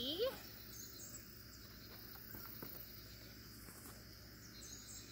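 Faint, steady insect chorus, crickets trilling in high-pitched bands, with a few soft clicks.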